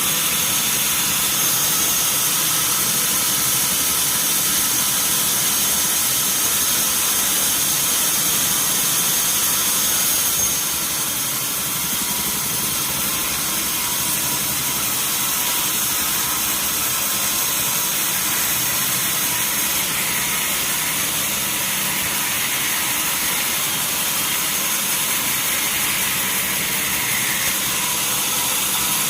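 Sawmill machinery running steadily with a loud whine and hiss, dropping slightly in level about ten seconds in.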